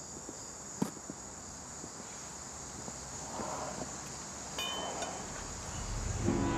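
Steady high-pitched insect chorus, with a single sharp click about a second in and a few short high beeps just before the end. Low, sustained music notes come in near the end.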